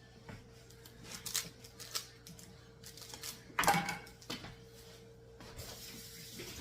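Kitchen handling sounds while cooking: scattered light clicks and taps, one louder clatter about halfway through, and a short hiss near the end, over a steady low hum.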